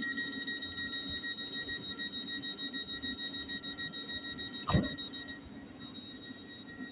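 Door-closing warning on a Class 717 electric train: a high, rapid beeping, several beeps a second, that stops about five seconds in, over the steady hum of the train. A single thump sounds just before the beeping stops.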